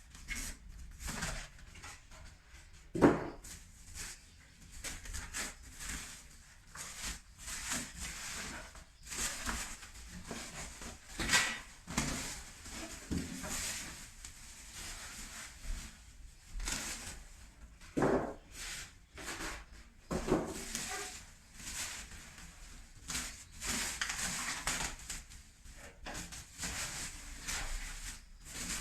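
A cardboard box and its packing being handled and opened by hand: irregular rustling and scraping, with a few sharp knocks, the loudest about 3 seconds in.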